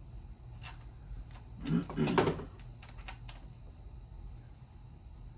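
Scattered light clicks and taps of small parts and screws being handled as the recoil starter housing is fitted back onto a chainsaw.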